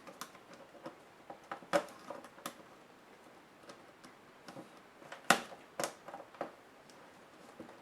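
Scattered small clicks and taps of hand tools and plastic laptop parts being handled during disassembly, the sharpest about five seconds in.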